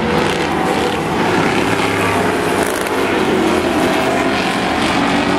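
Engines of several demo-race cars and pickup trucks running together around an oval track, a loud, steady mix of engine noise.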